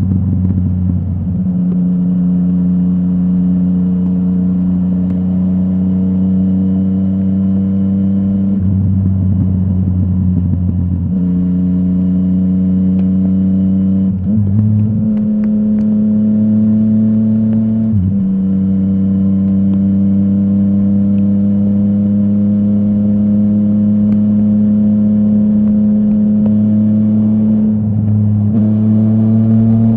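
Yamaha MT-09's inline three-cylinder engine running through a full Akrapovic exhaust at fairly steady revs. The note dips or changes briefly about six times, as when the throttle is eased or a gear is changed.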